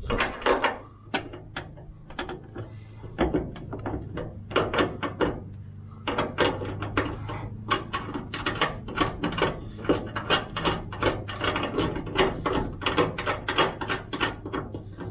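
Ratchet wrench clicking in quick, uneven runs as a bolt is run in to mount the upper end of a hood strut.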